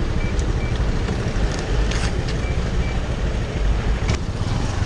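Steady low rumble of street traffic, with a few brief high beeps and a couple of sharp clicks.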